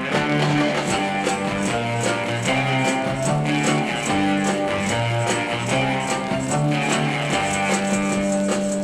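Instrumental intro of a 1965 pop record: guitar over a moving bass line, with a steady high percussion tick about four times a second.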